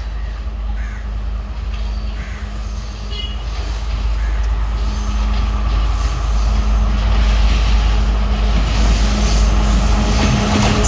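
Class S12 diesel multiple-unit passenger train approaching, its engine drone and rumble growing steadily louder. A rising hiss of wheels on rail joins in over the last few seconds.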